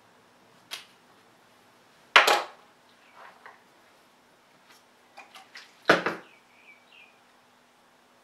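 Makeup containers and tools being handled and set down: a few sharp clicks and knocks, the two loudest about two and six seconds in, with lighter ticks between, over a faint steady hum.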